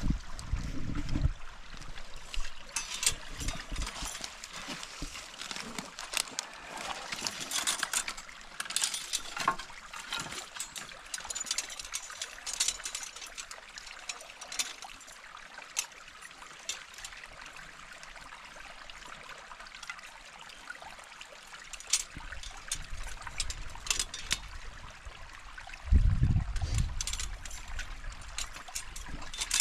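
Brook water trickling over a beaver dam, with many sharp clicks and small splashes scattered through it. Near the end a loud low rumble comes in for a few seconds.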